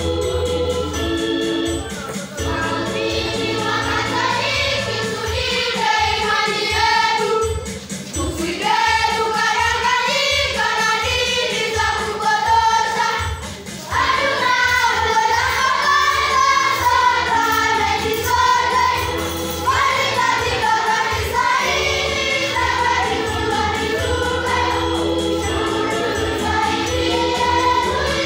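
Church choir singing a hymn in parts, with instrumental accompaniment keeping a steady beat.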